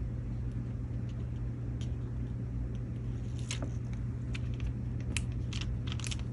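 Steady low hum throughout, with scattered light clicks and taps from paper and craft materials being handled on a desk, more of them in the second half.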